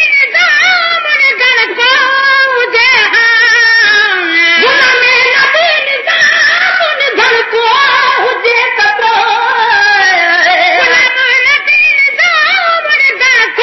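A naat, a devotional song in praise of the Prophet, sung in a high voice. The singing is unbroken, with long, drawn-out lines that waver and curl in pitch.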